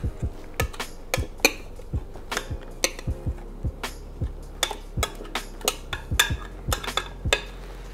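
A utensil clicking and knocking irregularly against a stainless steel pressure cooker pot as marinade is spooned onto seared oxtail, over faint background music.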